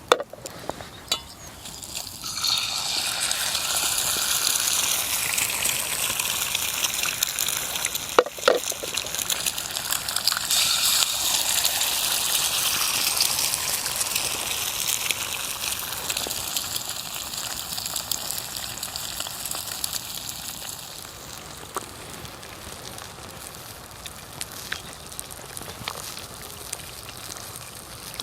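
Eggs frying in a hot pan set directly on a campfire: a loud sizzle that starts about two seconds in, with a sharp click at the start and another partway through, then slowly dies down.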